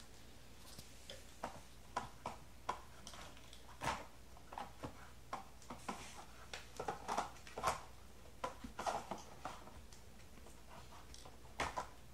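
A puppy eating kibble from an Aikiou plastic puzzle bowl, nosing the sliding and spinning compartments. Irregular clicks and clacks of plastic and food, busiest in the middle, with chewing.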